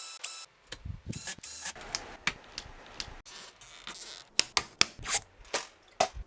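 Rapid clicks, taps and rubbing as computer parts are handled and fitted, with a run of sharp clicks in the second half.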